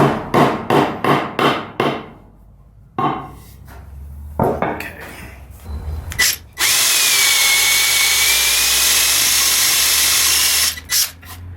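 A quick run of about seven sharp taps, then a few softer knocks: a Blum drawer front adjuster being driven into its force-fit hole in a cherry drawer front. About seven seconds in, a power drill runs steadily for about four seconds, with a faint whine over its noise, and stops abruptly, followed by two more knocks.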